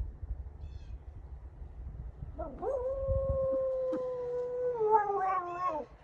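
A dog howling: one long howl starting about two and a half seconds in, held steady, then falling in pitch before it stops near the end.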